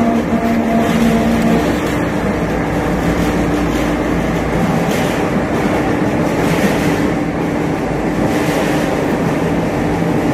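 Tyre steel wire separator machine running: its electric motor and gear reducer hum steadily with several tones while the rollers strip steel wire out of the tyre rubber, with a rougher noise that comes and goes.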